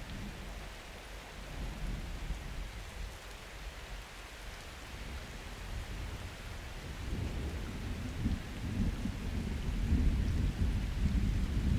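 Steady summer rain falling, with a low rumble of thunder building from about the middle and peaking near the end.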